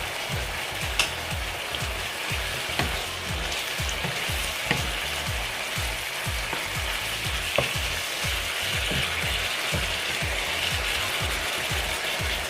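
Lemongrass-marinated chicken strips sizzling steadily in a hot pan, with a few sharp clicks of a utensil against the pan as they are stirred.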